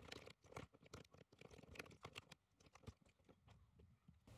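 Faint, irregular keystrokes of typing on a computer keyboard.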